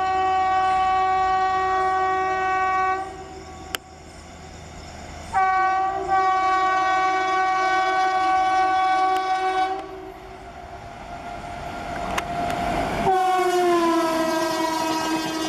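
Indian Railways electric locomotive's multi-tone air horn sounding three long blasts as the express train closes in at speed. On the third blast the pitch drops as the locomotive passes, and the rushing, clattering noise of the train passing at speed carries on.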